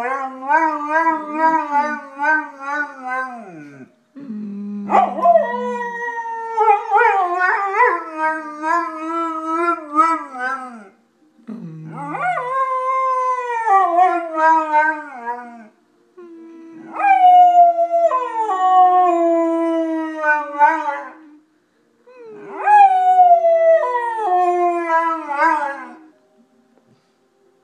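Golden retriever howling in about five long bouts with short pauses between them. The first howl wavers quickly up and down in pitch, and the later ones slide downward. Short, steady low tones sound just before several of the howls.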